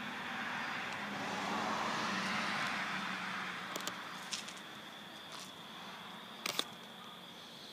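A road vehicle passing, its road noise swelling to a peak about two seconds in and then fading away. Behind it runs a steady high-pitched insect trill, and there are a few sharp clicks of the phone being handled.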